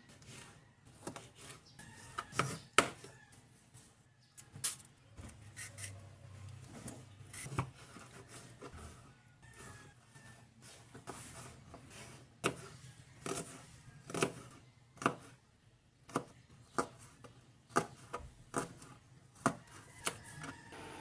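Knife chopping on a wooden cutting board: scattered knocks at first, then a steady run of chops about one a second through the second half.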